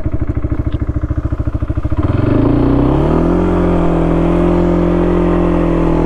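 Kawasaki Brute Force 300 ATV's single-cylinder four-stroke engine idling with a fast, even pulse. About two seconds in it revs up with a rising pitch, then holds a steady, higher drone as the quad gets under way.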